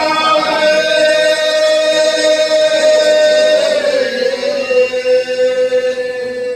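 Men chanting one long held note of a devotional mawlid chant in Arabic praise of the Prophet. The pitch dips slightly about four seconds in, and the note breaks off just before the end.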